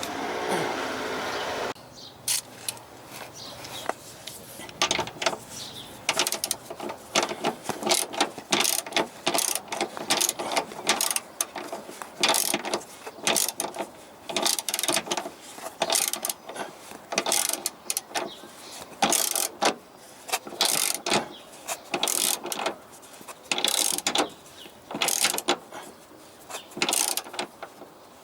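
Socket ratchet wrench clicking in quick irregular runs, working the bolts of a Porsche Boxster 986 front track control arm. A short steadier noise comes before the clicking starts.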